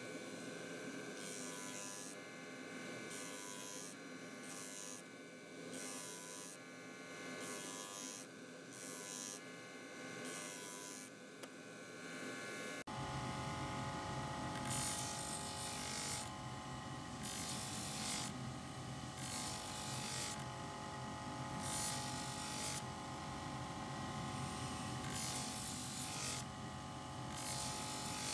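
Electric motor spinning a sanding drum steadily, with a rasping hiss about once a second each time a buffalo horn piece is pressed against the abrasive. About halfway through, the sound turns deeper and louder.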